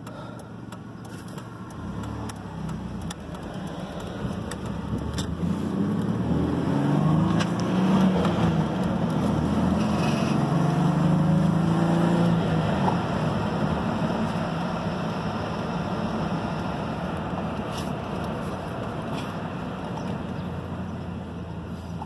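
Mazda B3000 pickup's 3.0-litre V6 heard from inside the cab while driving. The engine note climbs and grows louder as it accelerates in gear through the first half, then the revs drop and it settles to a steadier, lower drone with road noise.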